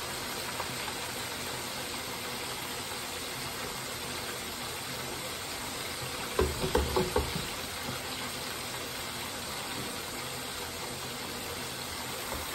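Catfish nuggets deep-frying in a deep fryer: a steady hiss of bubbling oil. A quick run of four or five knocks comes about halfway through.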